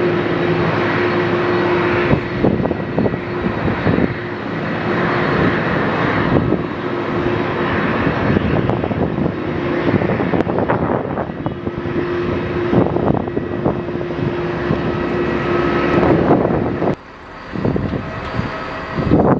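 Airliner engines running loud: a dense, steady noise with a held whine through most of it, dropping away abruptly near the end before picking up again.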